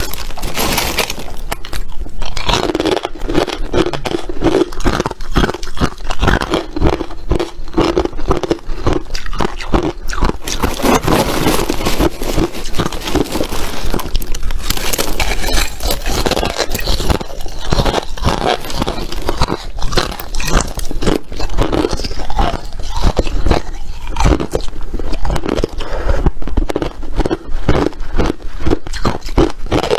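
Close-up biting and chewing of crunchy ice: dense, continuous cracking and crunching with no pause.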